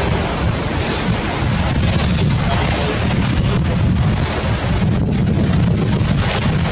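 Wind buffeting the microphone with a steady low rumble, over the continuous rush of open-sea waves.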